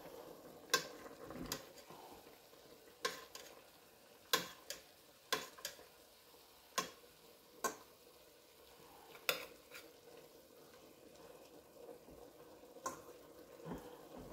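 Metal spoon stirring food in a stainless steel pot and knocking against its side about a dozen times at uneven intervals, over a faint sizzle of frying.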